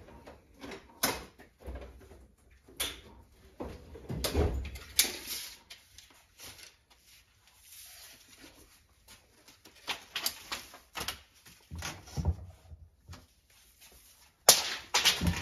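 Handling sounds at a workbench: scattered clicks, knocks and rustles as a steel tape measure is drawn out along plastic drip tubing, with a quick run of louder clacks near the end.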